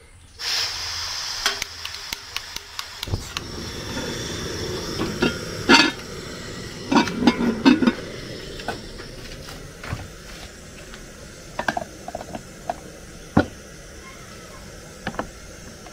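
Gas burner on a metal stove stand: a steady hiss of gas starts about half a second in, then a low flame rumble joins about three seconds in. Scattered metal clinks and knocks sound over it.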